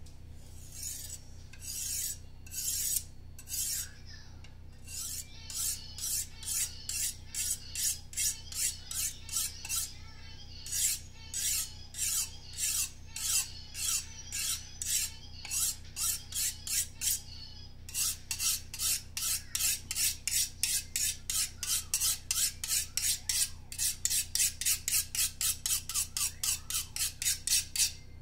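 A serrated kitchen knife being sharpened on a tapered sharpening rod: short metallic scraping strokes as the rod is drawn through the serrations, a few at first, then a steady run of about two strokes a second that quickens to nearly three a second after the middle.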